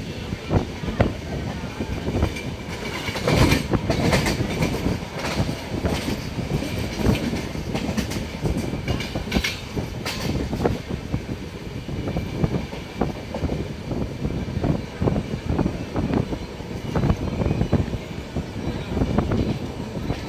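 Express passenger train running at speed, heard from a coach doorway: the wheels rumble on the rails and clack irregularly over rail joints, with a busier clatter twice, about three seconds in and about nine seconds in.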